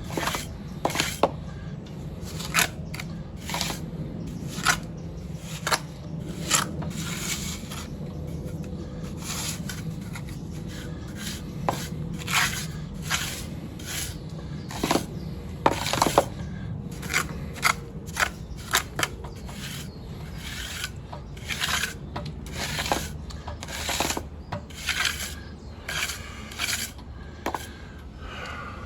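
Repeated scraping strokes of a hand tool working a rough surface, irregular and coming one to three a second.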